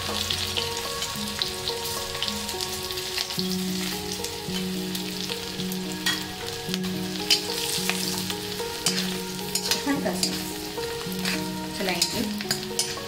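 Whole spices and green chillies sizzling in hot ghee in an iron kadhai, with a steady crackling hiss. A steel ladle stirs them and clicks against the pan now and then.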